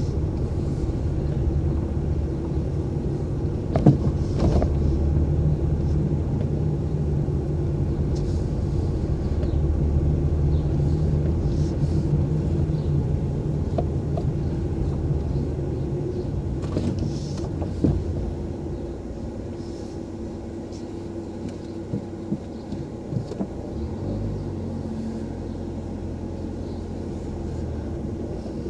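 Car engine and road noise heard from inside the cabin: a steady low hum with a few sharp knocks, the first about four seconds in. It grows quieter in the last third.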